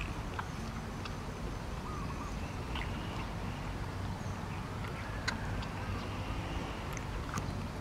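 Baby macaque sucking on a milk bottle: scattered small clicks and faint squeaks over a steady low background rumble.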